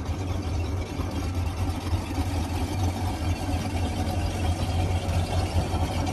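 Boat engine running steadily at idle, a constant low hum with a wash of noise over it.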